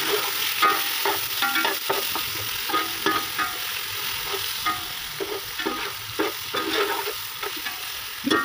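Chopped tomatoes with chilli and salt sizzling in hot oil in a metal pot, stirred with a spoon that scrapes and knocks against the pot again and again.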